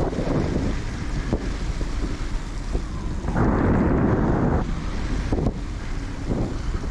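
Wind buffeting the microphone of a camera on a moving bicycle: a steady low rumble, with a louder gust a little past halfway.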